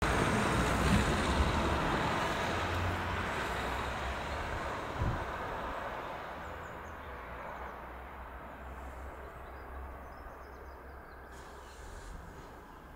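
A car driving past, its engine and tyre noise loudest in the first couple of seconds and fading away steadily over the following seconds. A single short knock about five seconds in, and faint bird chirps as it dies away.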